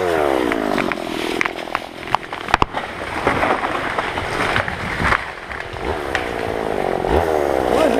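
A chainsaw drops from a high rev to idle as the cut is finished, then idles while the felled tree gives way with sharp cracks about two and a half seconds in and comes down; the saw is revved up again near the end.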